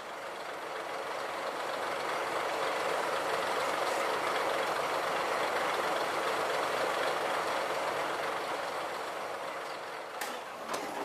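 Diesel engines of the coupled vintage railcars Kiha 702 and Kiha 303 running while the cars stand at the platform: a steady rushing engine noise that swells over the first couple of seconds and falls away near the end.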